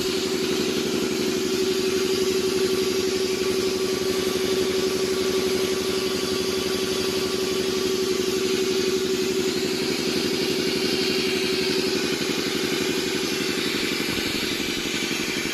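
Air compressor running steadily under test: a steady hum with a fast, even pulsing.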